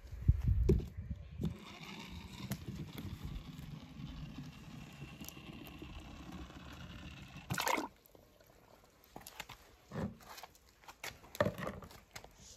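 Toy monster truck being handled with a few knocks, then going into a shallow pool of water, with water sounds and one sharp loud splash or knock about two-thirds of the way through, followed by a few light knocks.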